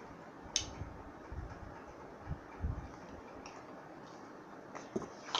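Faint room tone with soft handling noises: a sharp click about half a second in, a few soft bumps around two to three seconds in, and more clicks near the end.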